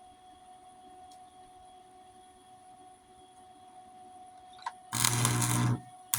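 Faint steady hum, then a click and, about five seconds in, a short burst of arc welding on the steel mower deck, under a second long, with a strong low buzz. The welder is set hot enough to burn through the thin deck steel.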